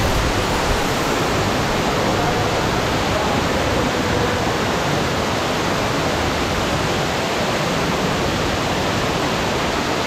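Waterfall pouring into a shallow rock pool: a steady, loud rush of falling water.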